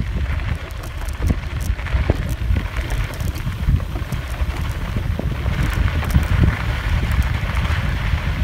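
Wind rumbling on the microphone while a bicycle rolls along a dirt trail, with tyre noise on the dirt and scattered small clicks and rattles.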